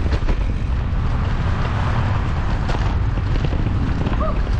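Wind buffeting the microphone of a camera on a moving bicycle: a loud, steady low rumble.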